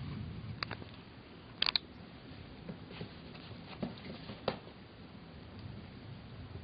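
A kitten scampering on a tile floor: light pattering of paws with a few sharp clicks and taps, the loudest a quick double click about a second and a half in.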